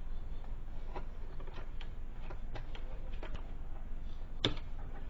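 Wire strippers working on an electrical cord, stripping back its insulation: a run of small, irregular clicks and snips, the loudest about four and a half seconds in.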